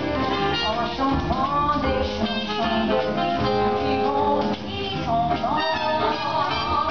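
Live swing band with a saxophone section and drums playing, with a woman singing lead over it.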